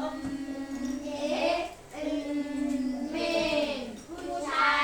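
A class of children's voices sounding out words together in long, drawn-out, sing-song syllables, in three held phrases, as in a phonics blending drill.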